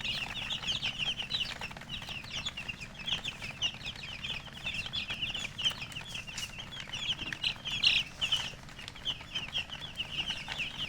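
A group of domestic chicken chicks peeping continuously, with many short, high chirps overlapping one another.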